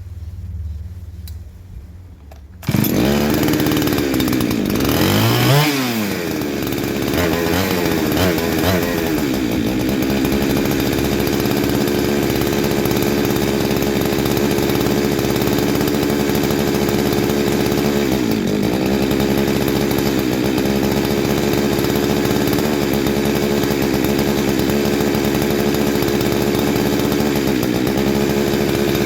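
Two-stroke engine of a Husqvarna 372XP clone chainsaw firing up suddenly a few seconds in, revving up and back down, then running steadily. It is running on a new cheap carburetor, which the owner calls terrible, while the mixture is being tuned.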